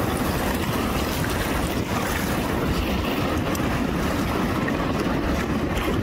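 Steady rush of river water through whitewater rapids, with wind buffeting the microphone.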